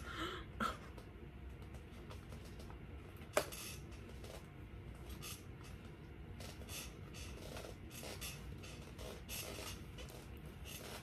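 Faint, irregular swishes of a makeup brush sweeping powder across the face, over a low steady hum, with one sharp click a little over three seconds in.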